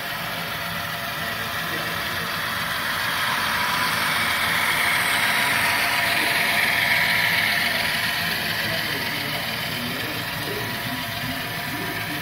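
HO scale model freight train rolling along the track: the wheels of the freight cars and the locomotives' motors give a steady whir. It swells as the cars pass close, a few seconds in, and then eases off.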